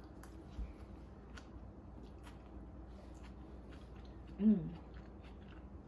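Quiet eating at the table: faint clicks of cutlery on a plate, and a short voiced 'mm' falling in pitch about four and a half seconds in.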